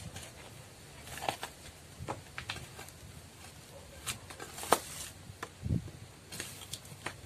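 Metal bar scraping and knocking against soil and stones as it is pried into a hole under a rock: scattered short scrapes and clicks, the sharpest a little under five seconds in.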